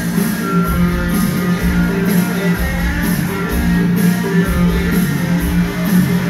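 Dance music played loud over a party sound system, with a pulsing bass beat under sustained low notes.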